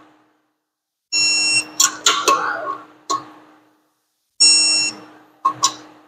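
Digital torque wrench beeping twice, each a short steady beep of about half a second, the signal that a clutch pressure-plate bolt has reached the set torque. A few sharp metallic clicks follow each beep.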